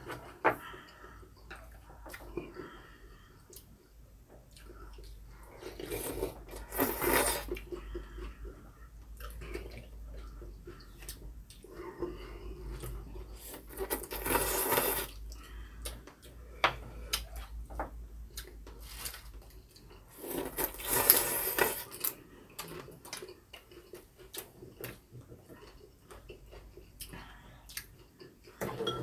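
People eating beef rib soup: three loud slurps of noodles and broth, spread over the stretch, with quieter chewing and the light clink of chopsticks and spoons on ceramic bowls in between.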